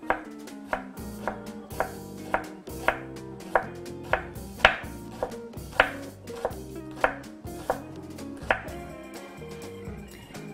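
Chef's knife chopping a shallot on a wooden cutting board: sharp, even strokes about two a second, stopping a couple of seconds before the end.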